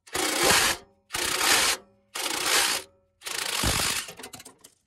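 Cordless Ryobi impact wrench hammering in four bursts through a long socket extension, loosening a catalytic converter flange bolt. The last burst is the longest and trails off into light rattling ticks.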